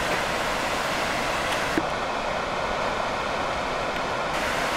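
Cascade Falls on the Cascade River: a waterfall rushing steadily through a rock gorge, a constant noise of falling water.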